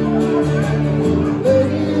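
A country band playing, held chords sounding steadily, with a high held melody line coming in about one and a half seconds in.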